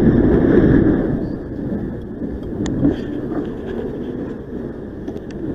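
Wind and road rush on the camera's microphone while riding an electric unicycle at speed through city traffic: a steady low roar, loudest in the first second and then a little lower.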